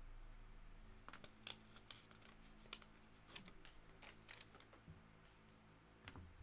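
Quiet, scattered light clicks and ticks of hands handling things at a desk, then a soft knock near the end as a card in its holder is lifted off a wooden display stand.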